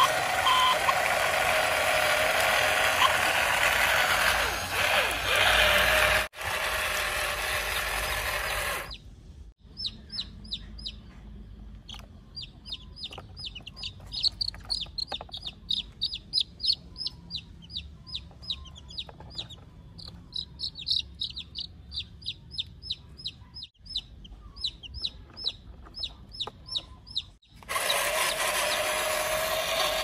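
Baby chickens peeping: rapid high cheeps, several a second, each falling in pitch. Before them, for about the first nine seconds, and again near the end, the electric motor and gears of a toy RC construction vehicle whir loudly.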